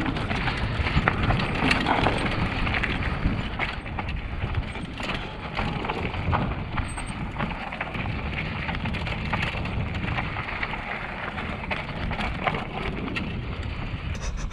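Mountain bike rolling over rough ground, with steady rattling and knocking from the bike and wind buffeting the microphone.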